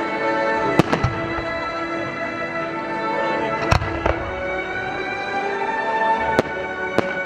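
Aerial fireworks bursting with sharp bangs: two about a second in, one in the middle and two near the end. Music with long held tones plays underneath.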